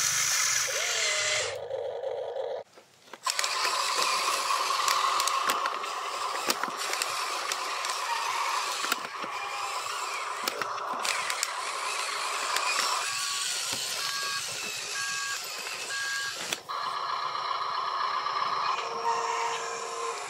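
Small electric motors and gearboxes of an RC excavator and a Huina RC dump truck whining as they work, with stones scraping. A two-tone electronic beep repeats about once a second for a few seconds after the middle. The sound cuts out briefly about three seconds in.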